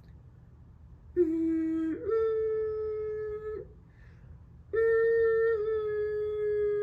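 Two long steady alert tones sounding ahead of the spoken siren message. The first starts low and steps up in pitch about two seconds in. After a short gap, the second holds at the higher pitch with a slight dip midway.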